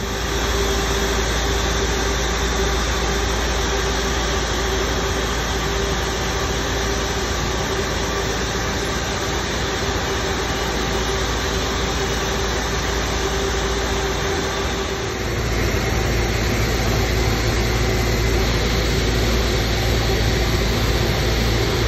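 Rolls-Royce Trent 772B-60 turbofan on an Airbus A330-300 running during a ground engine run-up test: a loud, steady roar with a steady whine. A deeper rumble strengthens about two-thirds of the way through.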